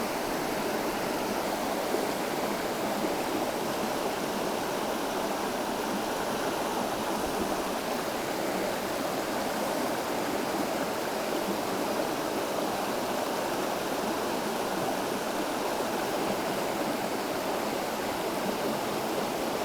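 Steady rush of a shallow river's current running over rocks, even and unbroken.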